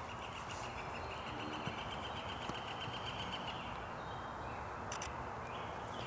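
Quiet outdoor ambience with a high, buzzy trill lasting about three and a half seconds, followed by two short ones near the end.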